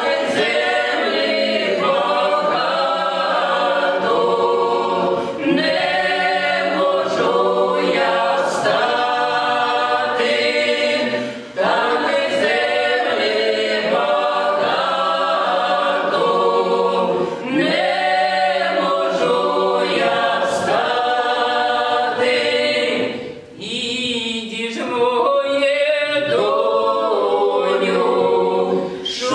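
A small Russian folk ensemble sings a psalm, a sacred folk song, unaccompanied and in several-part harmony. The song moves in long phrases, with short breaks for breath about eleven seconds in and again about twenty-three seconds in.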